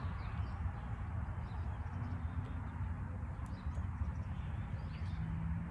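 Low steady background hum with a few faint bird chirps over it.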